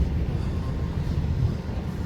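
Steady low rumble of outdoor background noise at a strip mall, with no distinct events.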